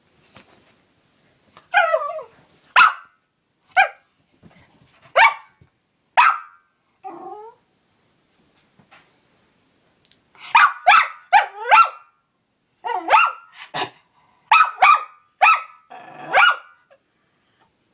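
Small dog barking excitedly in short, sharp barks: a few spaced a second or so apart, then quick runs of barks in the second half.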